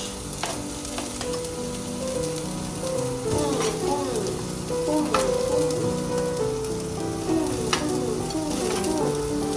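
Mushrooms and onions sizzling as they fry in a pan, with sharp clacks of a utensil stirring every second or two. A background melody plays underneath.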